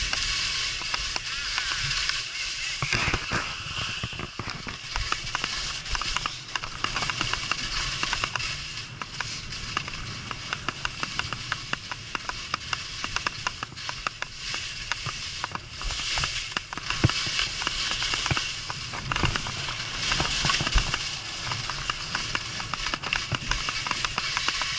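Skis sliding and scraping continuously over rough, wind-rippled snow, with many small crackles as the edges chatter across the uneven surface.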